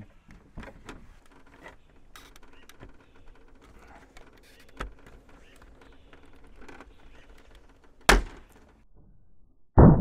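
A motorhome's plastic inner door card being pressed onto the door and clipped in: light scattered clicks and knocks, a single sharp snap about eight seconds in, and a louder knock with a short rattle just before the end.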